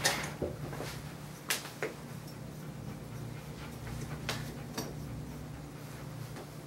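A handful of short, sharp clicks and light knocks from handling during grooming, the loudest right at the start, over a steady low hum.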